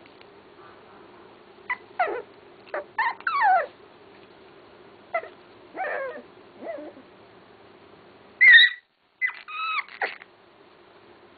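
A young puppy whimpering and whining in short high cries, many sliding down in pitch, in bursts over several seconds. The loudest cry comes about eight and a half seconds in.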